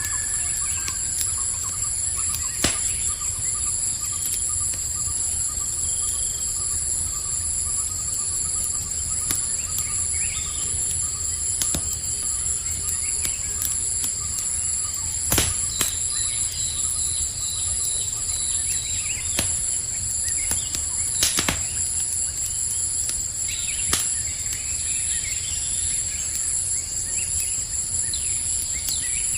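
Campfire burning with a low rumble and a few sharp crackling pops, about 2.5, 15 and 21 seconds in, over a steady high-pitched chorus of night insects. Faint bird chirps come and go.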